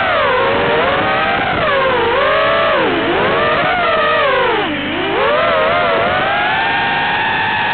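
Racing quadcopter's brushless motors whining, the pitch rising and falling with the throttle, with several dips where the throttle is chopped and punched again, the deepest a little before 5 seconds in.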